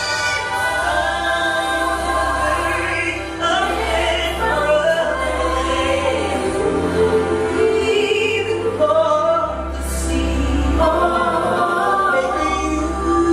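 Female gospel vocal trio singing into handheld microphones, voices in harmony over accompaniment with a steady low bass line.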